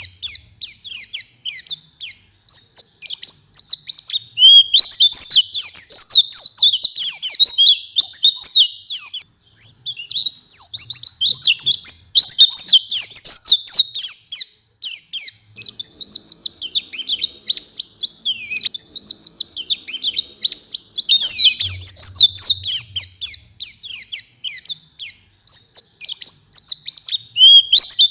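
White-eye (pleci) singing a fast, varied, high-pitched twittering song in long phrases, with a few short breaks between them.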